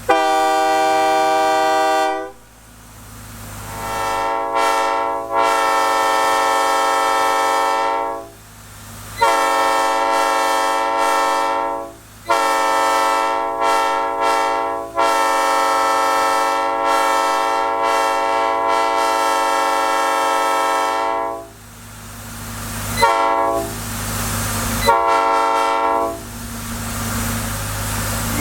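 Multi-chime locomotive air horn blown in a series of blasts on compressed air, several notes sounding together as one chord. Some blasts swell in gradually, one holds for about six seconds, and two short toots with a hiss of air come near the end.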